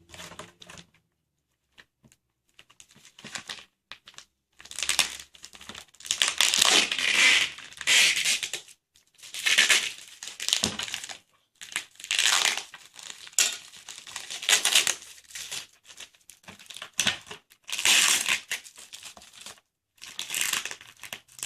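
Tight wrapping being torn and pulled off a tin of colour pencils: a few small clicks, then from about four seconds in, repeated bursts of crinkling and tearing.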